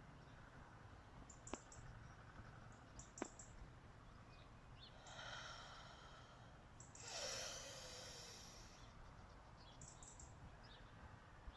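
A person breathing audibly: two long breaths of air, about five and seven seconds in, the second louder, over faint room tone, with two sharp clicks in the first few seconds.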